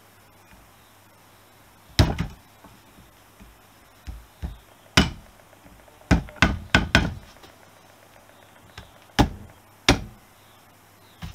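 A soft-faced mallet striking a brass drift held against a motorcycle centre stand's pivot, about ten sharp knocks in irregular groups, with a quick run of four near the middle.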